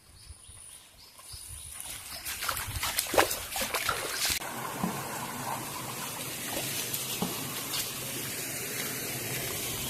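Water trickling in a small stream, a steady running sound that settles in about halfway through, after a few scattered knocks and clicks.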